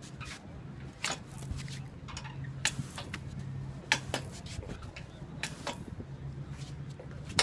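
Push-button outdoor beach shower pressed and spraying water, with scattered sharp taps and clicks.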